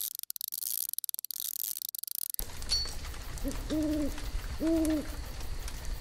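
A high hiss for the first two seconds or so, then an owl hooting twice, each hoot a short held note about a second apart, over a soft outdoor background.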